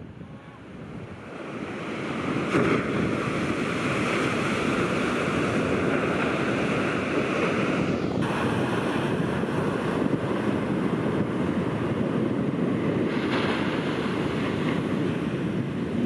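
Heavy shorebreak waves crashing and washing up a sandy beach, with wind buffeting the microphone. The surf is quieter at first and builds to a steady loud wash about two seconds in.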